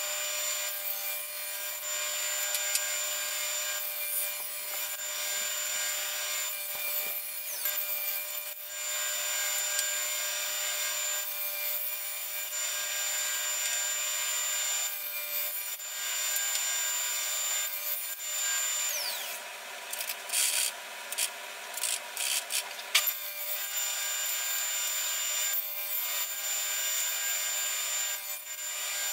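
Table saw running while a board clamped upright in a homemade jig is pushed through the blade, cutting bridle joints in Brazilian cherry. About two-thirds of the way through the blade's whine falls away, a quick run of sharp knocks follows, and then the saw runs steadily again.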